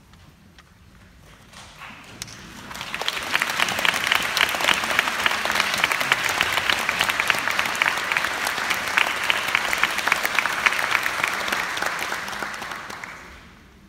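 Audience applause, many hands clapping. It swells in about two and a half seconds in, holds steady, then dies away near the end.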